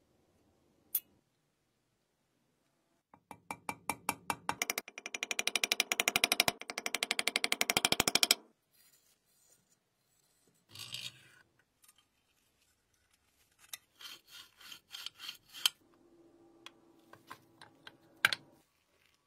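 Metal parts of a restored pencil sharpener being worked by hand: a single sharp click, then a run of rapid clicks that speeds up into a dense rattle for about five seconds. Shorter bursts of clicking follow, and there is one more sharp click near the end.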